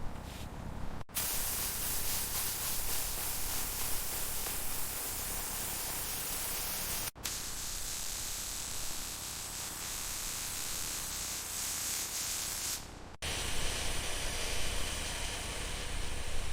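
Steady spraying hiss in three long stretches, broken by sudden cuts about a second in, about seven seconds in and near the end.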